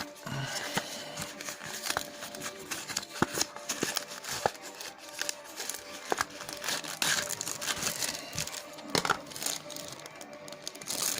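Rustling and crinkling with many irregular sharp clicks, from a small product and its packaging being handled, over faint background music.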